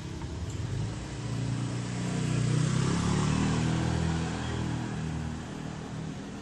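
A motor vehicle's engine going past: it grows louder about two seconds in and fades toward the end.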